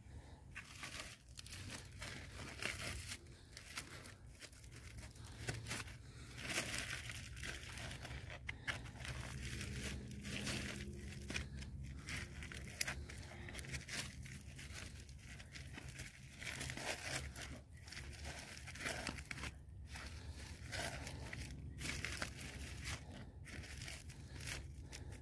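Crinkling and rustling of a plastic bag as it is handled and wrapped in shallow water, in irregular crackly bursts.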